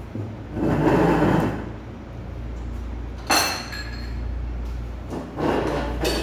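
Metal ladle and tableware clattering against a soup pot and dishes, with a sharp clink a little over three seconds in, over a steady low hum.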